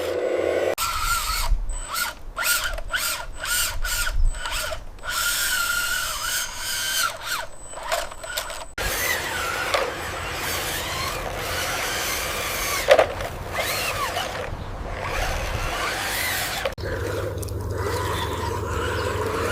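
Small electric motors and gearboxes of radio-controlled construction vehicles running, with whining that rises and falls and a rattling, grinding sound. The character changes abruptly twice.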